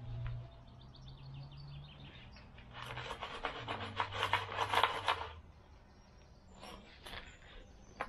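Soil being rubbed by gloved hands through a wooden-framed garden sieve, a dense gritty scraping from about three to five seconds in, as stones and rubbish are sieved out of molehill soil. Fainter scratches follow about seven seconds in.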